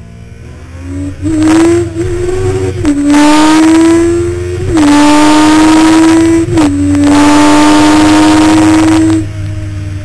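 Honda CBR1100XX Blackbird's inline-four engine under hard acceleration: the engine note climbs, drops back and climbs again three times as the rider shifts up through the gears, with heavy wind noise over it. Near the end the throttle is rolled off and the sound falls away.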